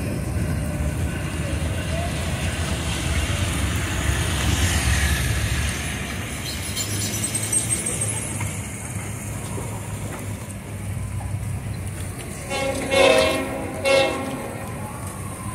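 Freight train's diesel locomotives rumbling steadily as the train pulls away, with its cars rolling on the rails. Near the end come two short blasts of the locomotive horn, the first a little longer than the second.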